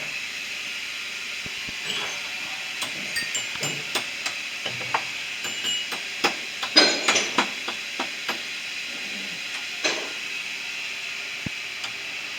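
Steady hiss with scattered clicks and knocks, and a short cluster of louder knocks about seven seconds in.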